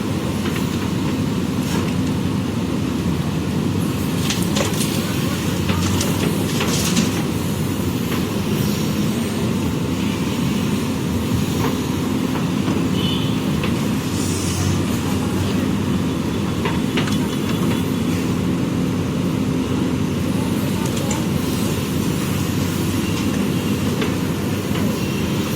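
JCB backhoe loader's diesel engine running steadily at working speed, with a few light knocks from the machine about six to seven seconds in.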